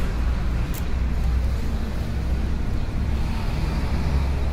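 Steady outdoor background noise, a low rumble with a hiss over it, and a single sharp click about three quarters of a second in.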